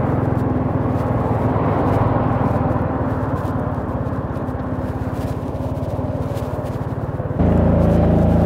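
Small motorcycle engine running steadily while riding, with wind noise across the microphone. About seven seconds in, it suddenly gets louder.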